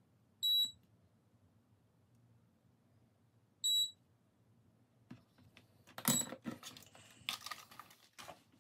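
Two short, high electronic beeps about three seconds apart, followed by a rapid run of clicks and knocks.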